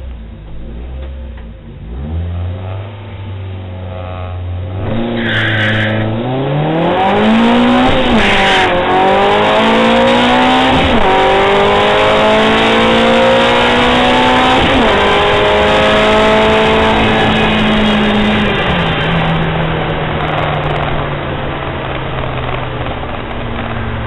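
Citroën AX engine heard from inside the car on a quarter-mile drag run: idling and revved on the line, then launching about five seconds in and winding up through the gears with three upshifts. In fourth gear near the end of the run the engine note suddenly drops and stays flat and lower as the car loses all power.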